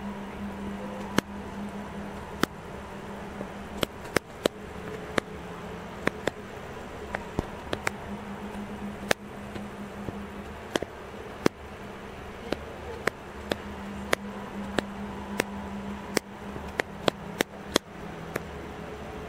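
A camera's shutter-speed and ISO command dial clicking through its detents as it is turned, in single clicks and short runs, bunched more tightly near the end. The clicks sit over a steady low hum.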